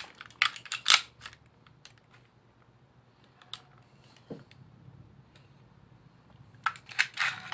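Hard clicks and clacks of an AW HX2001 Hi-Capa airsoft gas pistol's slide being worked by hand as the pistol is field-stripped. There are two loud clacks about half a second and a second in, a few faint ticks, and a quick cluster of clicks near the end.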